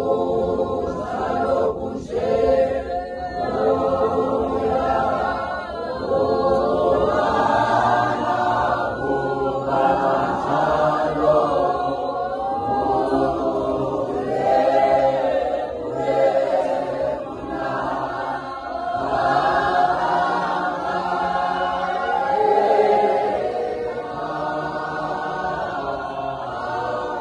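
Church congregation singing together unaccompanied, many voices in harmony.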